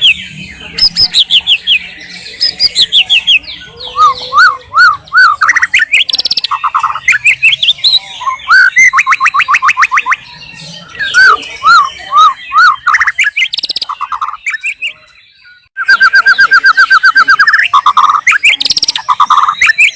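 White-rumped shama singing a loud, varied song of whistled phrases, runs of quick repeated notes and rapid trills, with a short pause about fifteen seconds in.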